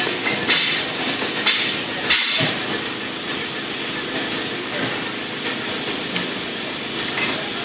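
CBK PI-6-6 portable inline filler crowner running, a steady machine noise with three short hisses of compressed air in the first two and a half seconds.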